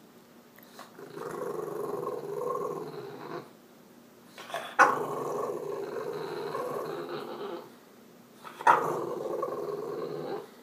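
French Bulldog making three long growling grumbles, each two to three seconds long. The second and third start with a sharp bark-like burst. This is the attention-demanding 'talking' of a Frenchie that wants its owner off the computer.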